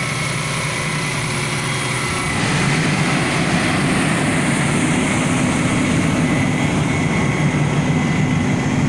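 Fire truck's diesel engine running steadily, getting louder about two seconds in and holding there.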